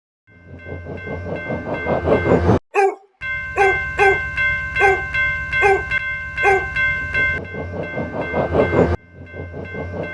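Cartoon railroad-crossing sound effects: a train's rapid rhythmic clatter with steady ringing tones over it, and a crossing warning bell clanging about twice a second. The sound cuts off suddenly twice, about two and a half seconds in and near the end, and starts again each time.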